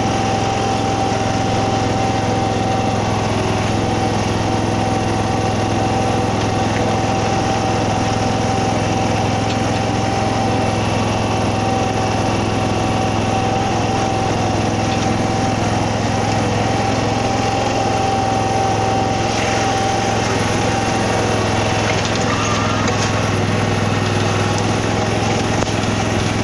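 Smithco bunker rake's small engine running steadily as the ride-on machine drives and rakes through a sand bunker, with a steady whine over it that stops about twenty seconds in.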